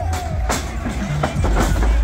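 Loud background music with a heavy bass and a drumbeat about once a second, with a few faint voices over it.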